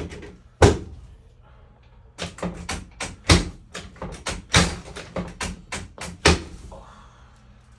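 Sharp knocks and taps during a chiropractic adjustment: one strong knock under a second in, then an irregular run of about a dozen quick knocks from about two seconds in, the last of them the loudest.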